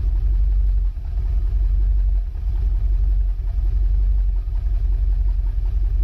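BMW F10 M5's 4.4-litre twin-turbo V8 idling at the tailpipes, rough and uneven, with small dips in level about every second as the idle hunts. The owner says it sounds like it isn't firing properly, or like there is a leak somewhere.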